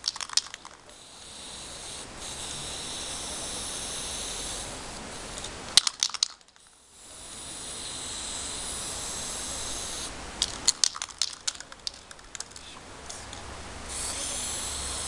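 Aerosol spray-paint can spraying onto pavement in three long, steady hisses. Between them come quick bursts of sharp rattling clicks as the can is shaken.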